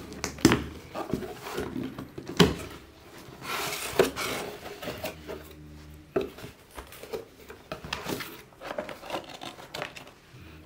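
A cardboard shipping box being opened by hand: packing tape tearing and peeling off, with a longer tearing rasp about four seconds in, then the flaps pulled open and cardboard and a boxed product handled, with a string of knocks and rustles.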